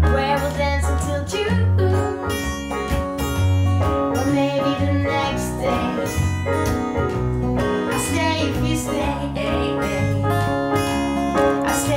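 Steel-string acoustic guitar and piano playing a slow song together, with a woman singing over them.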